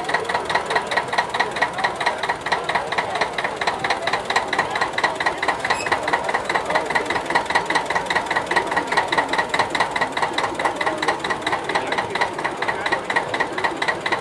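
Vintage tractor engine idling steadily, with an even, rapid chugging beat.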